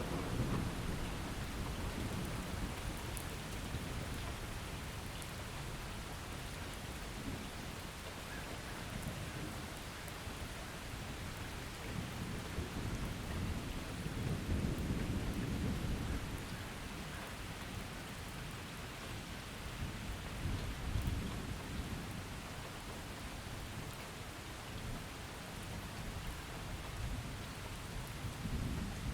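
Thunderstorm: steady rain with low, rolling thunder that swells several times, most strongly about halfway through.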